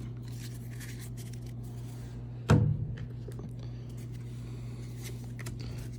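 Trading cards being handled, with faint ticks and rustles over a steady low hum, and one sharp knock about two and a half seconds in.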